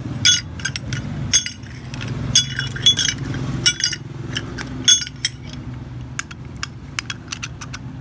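Metal parts of a Zippo lighter, the lid and case, clinking against each other with a short ringing ping about eight times as they are handled, followed by a run of lighter, quieter clicks near the end.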